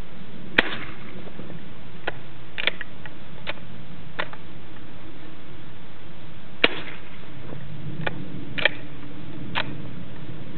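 Integrally suppressed .45 ACP Enfield No 4 bolt-action rifle firing: quiet, sharp reports a few seconds apart, with fainter metallic clicks of the bolt being worked between shots.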